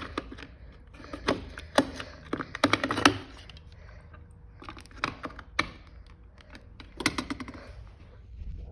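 Irregular run of sharp plastic clicks and taps, like a garage door opener wall control being handled and its buttons pressed. The clicks come in clusters, and near the end a steady low noise begins.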